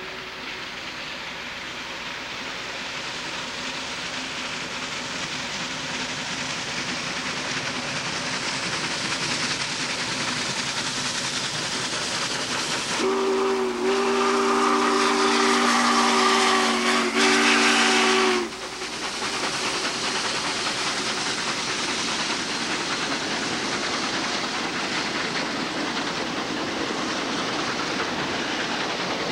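Steam locomotive passing at speed with a steady rush and hiss of steam. About halfway through, its steam whistle sounds a chord in one long blast of roughly five seconds, briefly broken twice.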